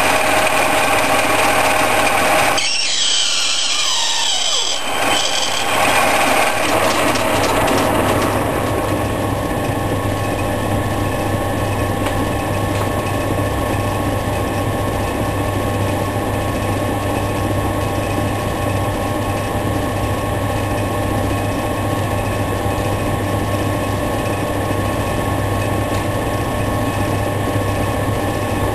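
Ward 1A capstan lathe (circa 1945) running steadily while M5 screws are turned on it: a constant hum with several steady tones. For a few seconds, starting about three seconds in, a higher, changing noise rises over the running machine.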